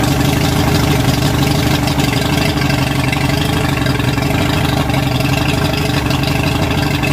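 Mercury two-stroke outboard motor, cowling off, running at a steady idle on a flushing hose with its newly fitted water-pump impeller; the engine note holds even throughout, without revving.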